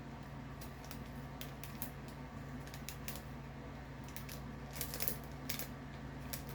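Thin clear plastic die envelope being handled and picked open at its seal, giving a string of scattered crinkles and crackles, more of them near the end.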